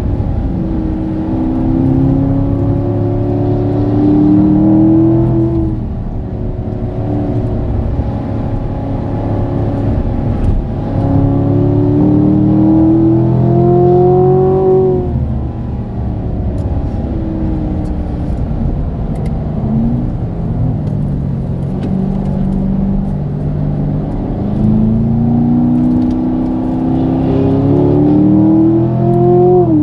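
Corvette C7's 6.2-litre V8, heard from inside the cabin, pulling hard with pitch rising through the revs and shifting up through its eight-speed automatic. It eases off between pulls, about halfway through and again later, before climbing once more.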